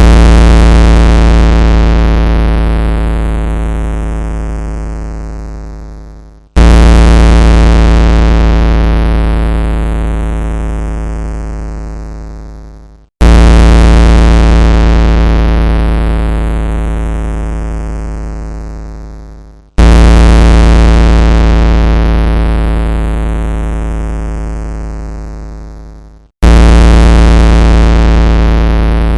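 Emergency-alert-style alarm tone: a loud, bass-heavy synthesized hit repeated five times, about every six and a half seconds. Each hit starts abruptly and fades away slowly, with a falling sweep in the treble.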